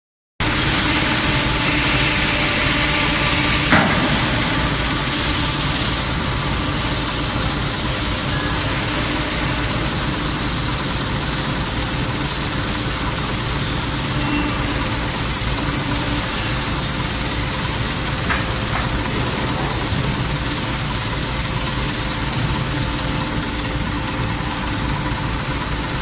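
Steady running noise of factory machinery with a constant hum, and one sharp knock about four seconds in.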